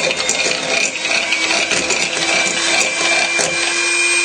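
Electric hand whisk running steadily at a constant speed, beating egg yolks in a bowl, with the beaters clicking and rattling against the bowl.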